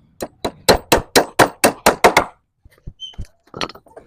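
A quick run of about nine hammer blows, about four a second, then a few lighter, scattered knocks, in work on a bamboo ladder.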